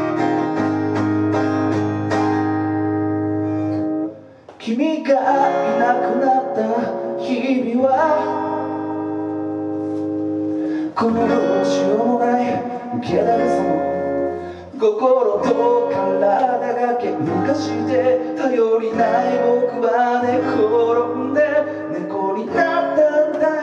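Acoustic guitar strumming chords in a live solo performance of a pop ballad, with a brief break in the playing about four seconds in.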